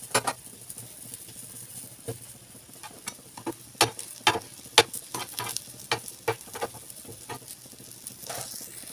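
Rolled egg omelette sizzling in an oiled frying pan, with a metal spatula knocking and scraping against the pan in a string of sharp clicks, most of them in the middle stretch.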